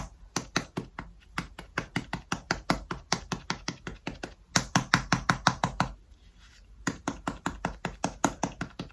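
Quick, sharp pats of a makeup cushion puff pressing cushion foundation onto the skin, about five a second, with a pause of about a second roughly six seconds in.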